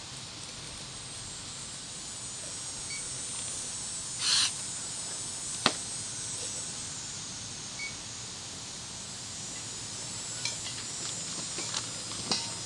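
Firefighting turnout gear and SCBA facepieces being put on: a short hiss about four seconds in, a sharp click a second later, and a few small clicks and knocks near the end, over a steady high insect buzz.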